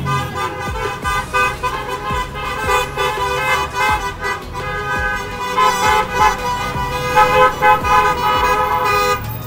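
Several car horns honking at once from passing traffic, long overlapping blasts of different pitches, loudest a little past the middle. The honking is drivers signalling support for a roadside rally.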